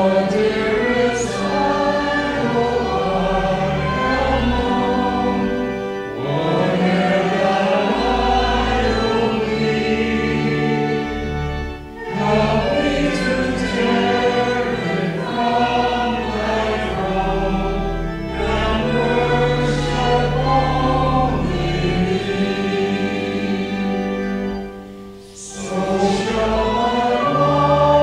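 Church congregation singing a hymn over held low accompanying notes, in long sung lines with short breaks between them about six and twelve seconds in and again near twenty-five seconds.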